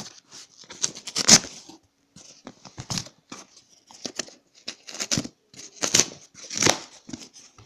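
Cardboard shipping box being torn open by hand: irregular ripping and scraping of tape and cardboard, with a few louder tearing strokes about a second in and again near the end.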